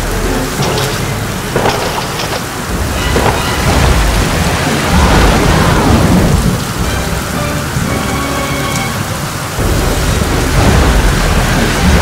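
Heavy rain pouring steadily with rolling thunder, which swells about four seconds in and again near the end.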